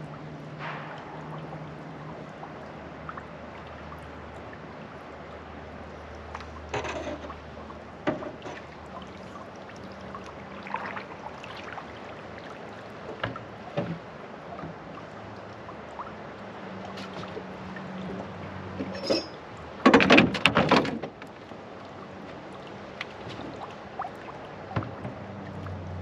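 Paddle and gear knocking against a small boat's hull as a man paddles and shifts things aboard: scattered single knocks, then a loud clatter of several knocks about twenty seconds in.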